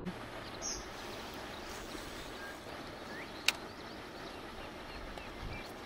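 Steady outdoor background hiss with a few faint chirps, and one sharp click about three and a half seconds in.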